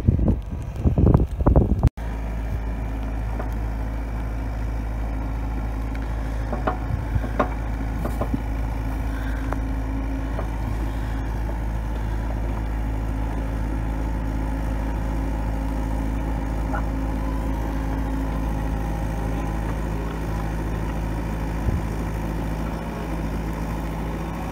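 Mini excavator's diesel engine running steadily under work while its bucket moves soil, with a few faint knocks. For the first two seconds, before a sudden cut, wind buffets the microphone instead.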